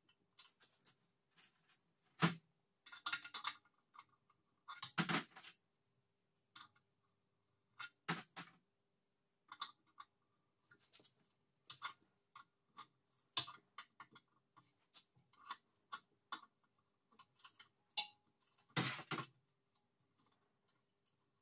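Hand tools and metal parts clicking, clinking and scraping as an old air compressor's pump head is worked on by hand. The clinks and short scrapes come irregularly, the loudest about two, five and nineteen seconds in.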